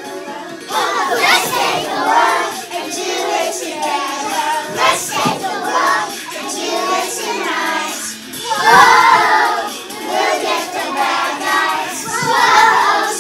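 Young children singing and shouting along with a children's action song, in loud uneven swells.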